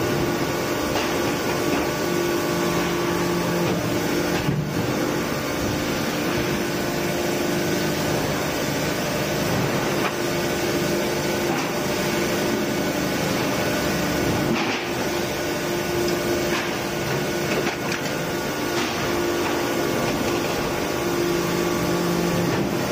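Large deep-drawing press forming stainless steel sink bowls, running with a steady machine hum, with a brief knock about 5 seconds in and again about 15 seconds in.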